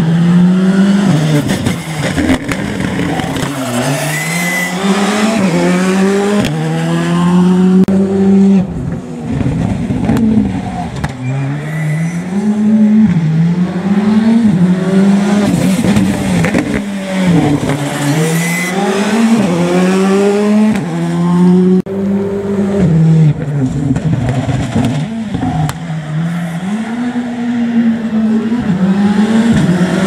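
Rally car engines at full throttle on a closed special stage, revving hard and easing off again and again, the pitch repeatedly climbing and then dropping.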